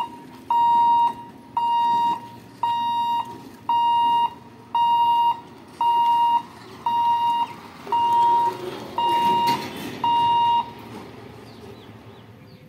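Railway level-crossing warning alarm beeping: a steady electronic tone, about half a second on and half a second off, repeating about once a second ten times, then stopping. A low rumble runs underneath.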